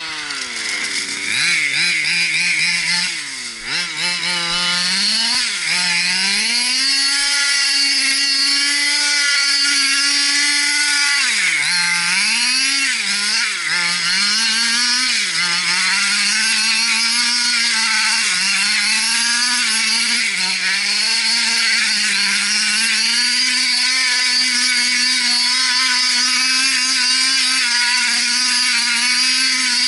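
Small two-stroke petrol engine of an HPI Baja 5 RC buggy running with a high buzz, revved up and down over and over, then held at fairly steady high revs through the second half.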